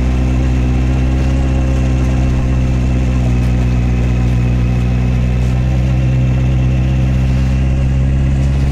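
Honda CB650R's inline-four engine running steadily at low revs in first gear, the clutch held at half-engagement to creep slowly up a steep slope.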